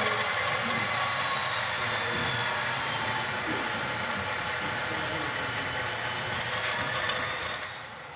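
HO scale model train of CN diesel locomotives and a caboose moving slowly along yard track: a steady running sound with a high whine that slides gently down in pitch over the first few seconds and then holds, fading out near the end.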